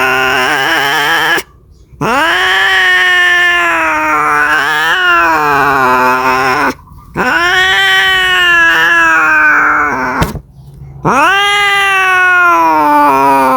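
Domestic cat caterwauling in a mating call: long drawn-out yowls of several seconds each, rising then falling in pitch, with short pauses between them.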